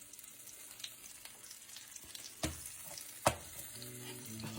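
Blueberry pancake batter sizzling in a hot pan, with two sharp knocks of a cooking utensil against the pan about two and a half and three and a quarter seconds in.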